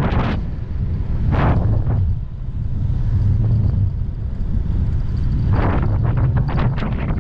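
Wind buffeting the microphone on an e-bike riding at speed: a steady low rumble, with louder gusts about a second in and again over the last couple of seconds.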